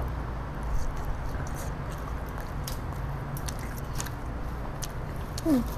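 Children eating otak-otak: biting and chewing, with small clicks and rustles as the banana-leaf wrappers are handled in a metal bowl, over a steady low hum. A brief falling vocal sound near the end.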